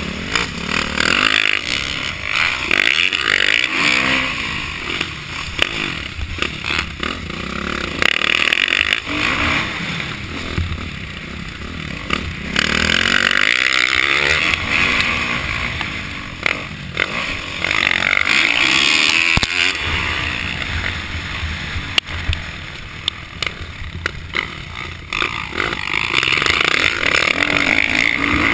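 Motocross dirt bike engine heard from a camera mounted on the bike, revving up and easing off again and again as the rider works the throttle around the track. Wind buffets the microphone throughout.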